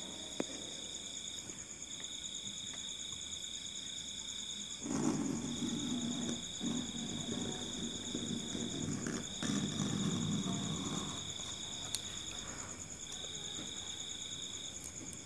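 Crickets trilling in long runs of one to three seconds broken by short pauses, over a fainter, higher steady insect tone. Twice, about five and nine seconds in, a spell of rustling handling noise, and a couple of sharp clicks.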